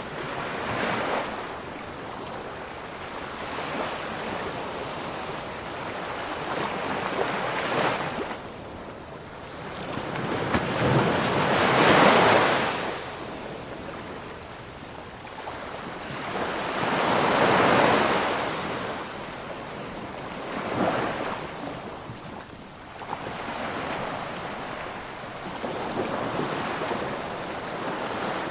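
Ocean waves breaking and washing in, rising and falling in slow swells every several seconds, the biggest two about twelve and eighteen seconds in; some wind noise on the microphone.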